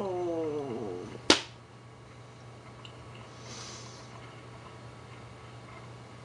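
A man's long wordless groan, sliding down in pitch over about a second, followed by a single sharp knock; then only a faint steady low hum.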